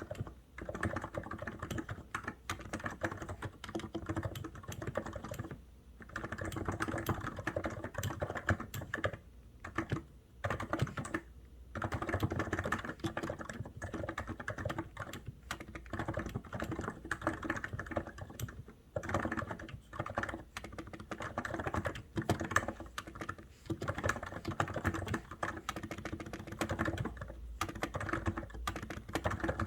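Continuous typing on a COX Endeavour keyboard: a fast, dense stream of keystrokes, broken by a few short pauses of under a second.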